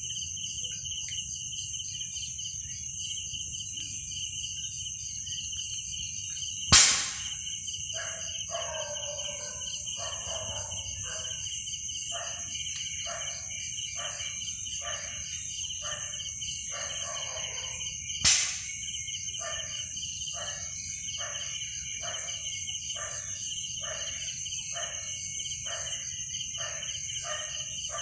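Dawn ambience at a lake: insects trilling steadily at a high pitch, and from about eight seconds in a bird calling the same short note over and over, a little more than once a second. Two sharp knocks, about eleven seconds apart, stand out as the loudest sounds.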